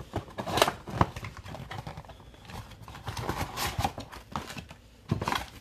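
Trading cards being handled on a table, with scattered taps and clicks. A louder clatter comes near the end as a pile of cards is knocked over.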